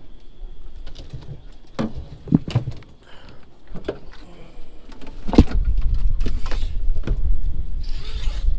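Scattered knocks and clicks of fishing gear being handled, the loudest about five seconds in, with wind rumbling on the microphone from then on and a short rustle near the end.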